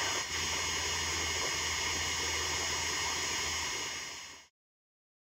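Steady hiss with a low hum, the background noise of old camcorder tape audio with nobody speaking. It fades out to silence about four and a half seconds in.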